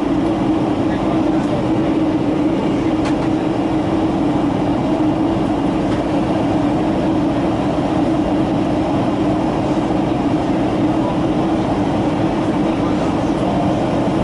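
Steady cabin noise inside a Boeing 757-200 in flight: an unbroken rumble of airflow and engine drone with a constant low hum.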